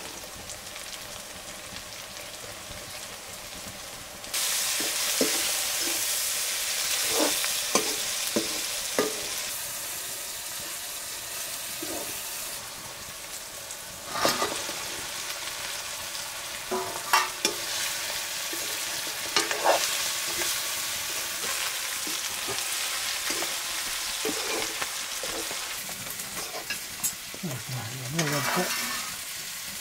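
Food frying and sizzling in a pan while it is stirred, with knocks and scrapes of the stirring spoon against the pan. The sizzle gets suddenly louder about four seconds in.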